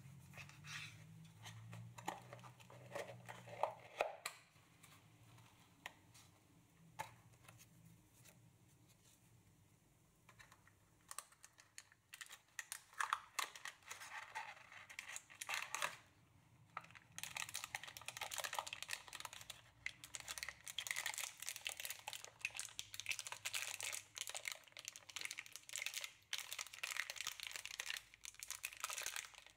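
A small cardboard box being opened and handled with light clicks and taps, then a plastic packaging bag crinkling as it is handled and unwrapped. The crinkling comes in about halfway through and grows dense and continuous near the end.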